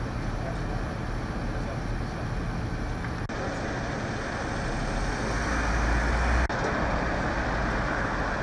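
Flatbed tow truck's engine running steadily among street traffic noise, its low rumble swelling for a second or so before a brief dropout about six and a half seconds in.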